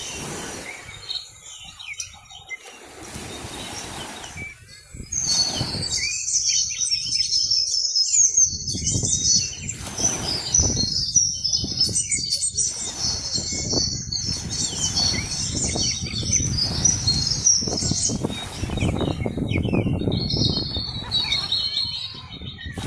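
Many small birds chirping and chattering together, rapid and high-pitched, starting about five seconds in and thinning out near the end, over a low rumble.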